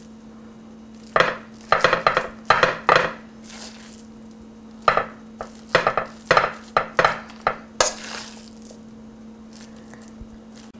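A metal spoon scraping and clinking against a stainless steel bowl and a glass baking dish as lentil filling is scooped out and spread. The clinks and scrapes come in two quick runs, with softer swishes between them.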